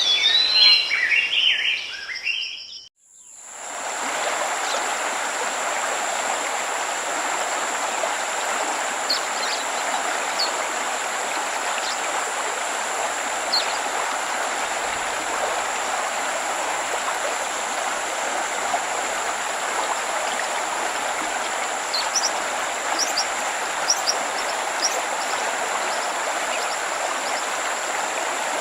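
Birds singing for about three seconds, fading out, then a steady rush of falling water with a thin steady high tone and occasional faint bird chirps. The waterfall sound is a dubbed-in recording, not the sound at the falls itself.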